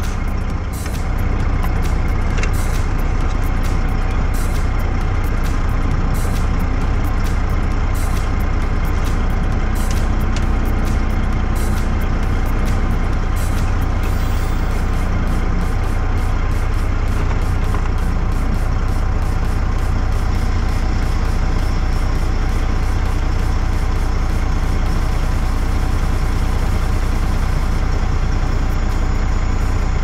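Freightliner truck's diesel engine idling steadily, heard from inside the cab.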